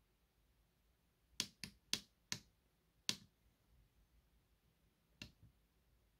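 Small tactile push buttons on a homemade Arduino TZX Duino tape loader clicking as they are pressed: four quick clicks about a second in, another a second later, and one more near the end.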